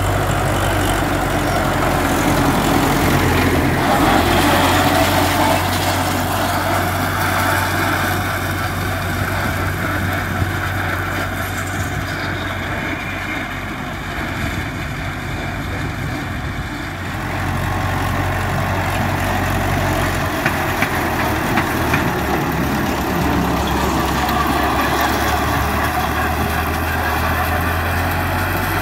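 MTZ-50 tractor's four-cylinder diesel engine running steadily at working speed while it drives an RK-185 rotary mower cutting lucerne. The sound drops a little around the middle, then comes back up.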